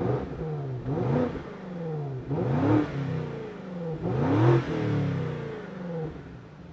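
BMW G90 M5's twin-turbo V8 revved in a series of throttle blips through an Akrapovič titanium rear exhaust, each rising sharply in pitch and falling back. The sound comes in suddenly at the start.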